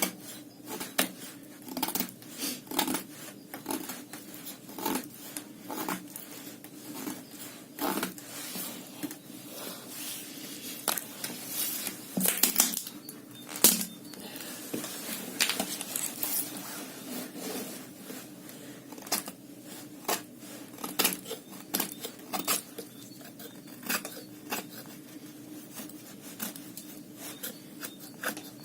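Victorinox Outrider Swiss Army knife being handled: many short metallic clicks, taps and scrapes of its blade and tools, loudest about twelve to fourteen seconds in, over a steady low hum.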